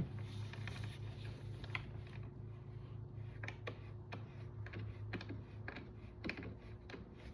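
Irregular light clicks and taps of T-handle wrenches and metal stool parts as an outdoor bar stool's screws are turned and fitted, over a steady low hum.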